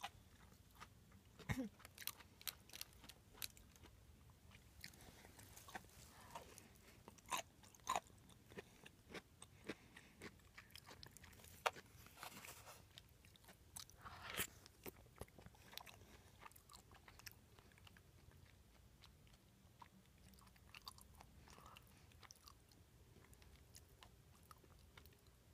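Close-miked chewing of a mouthful of hayashi (hashed beef) sauce over mixed-grain rice: faint, wet mouth clicks and smacks scattered irregularly. A plastic spoon scoops from the container around the middle.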